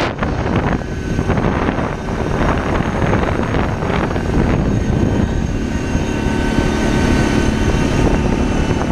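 Four-wheeler (ATV) engine running steadily, mixed with heavy wind rumble on the microphone.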